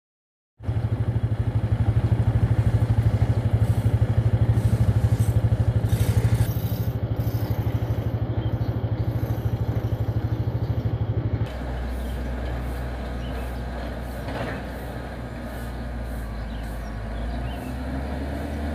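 An engine running close by with a fast, even pulse. About eleven seconds in it cuts to a lower, steadier engine hum.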